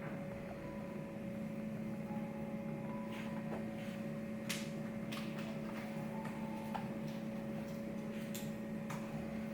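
Study-room ambience: a steady hum of ventilation or air-conditioning, with occasional small clicks and taps scattered through it.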